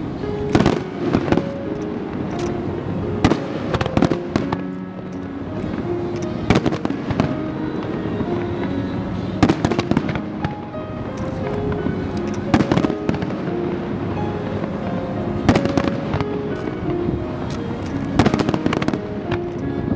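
Fireworks bursting in an irregular string of sharp bangs, several close together, over music with a melody of short held notes.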